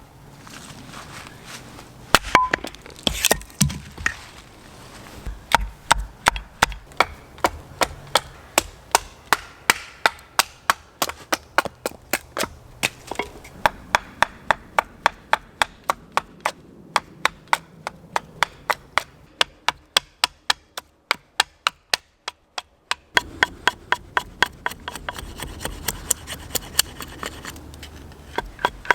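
Rapid, regular chopping strikes on wood, about two to three knocks a second, fainter for a stretch past the middle.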